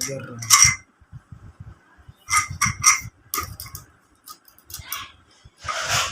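Metal ceiling fan motor parts being handled and fitted together: a series of short metal clinks and knocks, with a brief scrape near the end.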